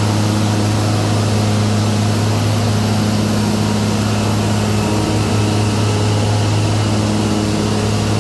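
Heavy diesel work machinery of a concrete pavement grinding (NGCS) crew running steadily inside a road tunnel: a constant low drone with a strong steady hum and a haze of mechanical noise.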